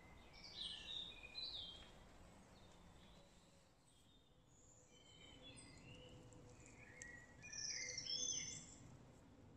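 Small songbirds chirping and twittering in short, high phrases over a faint background hiss. A cluster of chirps comes about half a second to two seconds in, and a busier, louder stretch runs from about five seconds to near the end.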